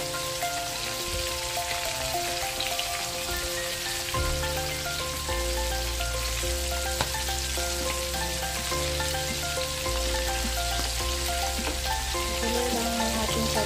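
Battered squid rings deep-frying in hot oil in a pan, a steady crackling sizzle, over background music with held notes and a bass line.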